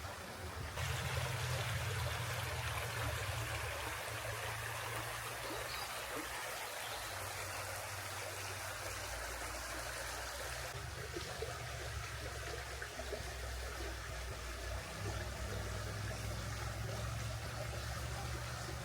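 A forest river flowing steadily, a continuous rushing of water, with a low rumble underneath.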